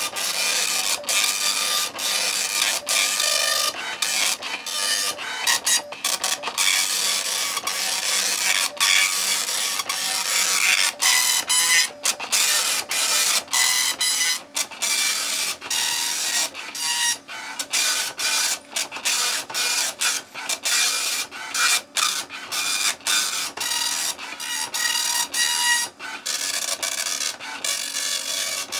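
Oki Microline 280 nine-pin dot-matrix impact printer printing its built-in self-test page with the cover off: the print head's rasping buzz as it sweeps across each line, broken by many brief pauses.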